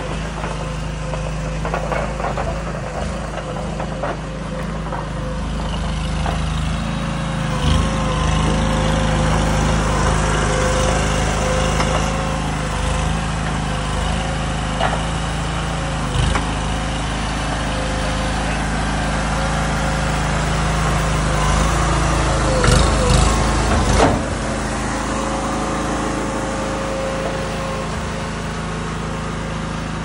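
Small engine of a stand-on mini tracked skid steer running steadily as the machine drives on its rubber tracks and works its forks, getting louder about eight seconds in. A quick run of knocks comes a little past twenty seconds.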